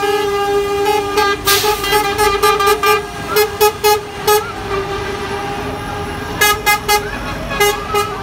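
Lorry air horns sounding as trucks pass: one steady held horn tone with runs of short repeated blasts over it, and a brief burst of hiss about one and a half seconds in.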